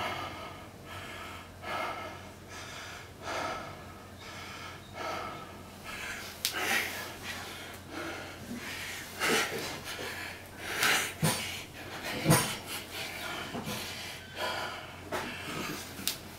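A man breathing heavily and audibly, out of breath from a long set of bodyweight squats: deep, even breaths about every second and a half at first, then quicker and more ragged, with a couple of sharp knocks in the second half.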